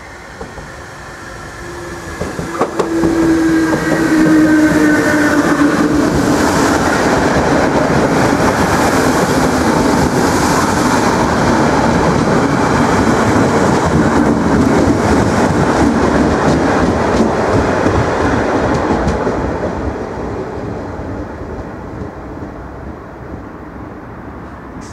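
Irish Rail 8100 class DART electric multiple unit approaching and passing close by. A falling whine sounds over a rising rumble as it nears; the wheels click over the rail joints as the carriages go past, and the sound fades away over the last few seconds.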